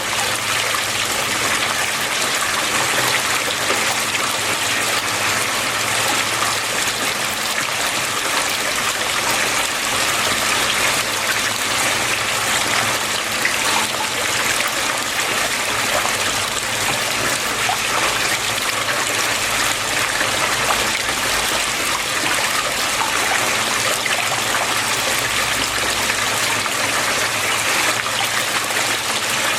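Water flowing and trickling steadily.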